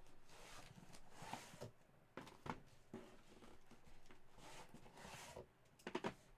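Faint rustling of trading cards and their packaging being handled, in two soft swells, with a few light taps.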